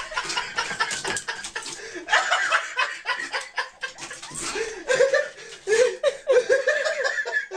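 Human laughter in repeated short, choppy bursts.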